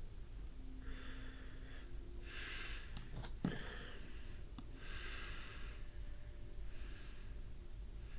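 A person breathing audibly, about four soft breaths in and out, with a couple of faint clicks midway.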